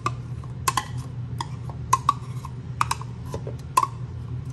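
A utensil tapping and scraping against a plastic blender cup as aloe vera gel is scraped into it: about ten sharp, irregularly spaced clicks, some in quick pairs, over a low steady hum.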